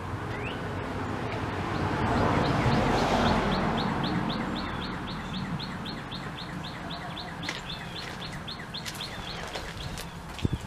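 A bird singing a long trill of rapid, high chirps, about five a second, mixed with a few slurred notes. A broad rushing noise swells and fades within the first few seconds.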